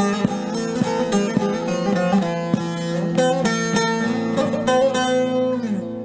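Background music: a plucked string instrument playing a melody over steady sustained low notes.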